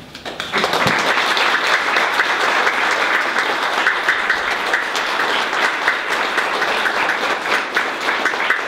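Audience applauding: many hands clapping, starting about half a second in and carrying on steadily.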